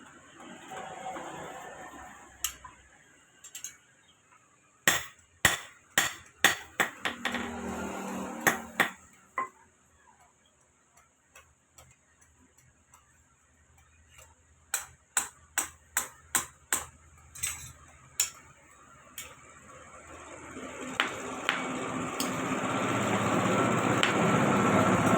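Hammer blows on metal while a khurpa (hand hoe) handle is fitted: a lone strike, then two quick runs of about nine ringing strikes each, several seconds apart. A broad steady noise swells up over the last few seconds.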